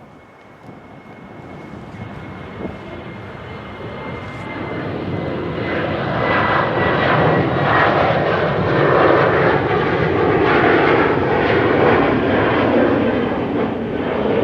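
Boeing 777-F16 freighter's twin GE90 jet engines at takeoff power, growing steadily louder over the first half and then staying loud. A thin high whine fades out partway through.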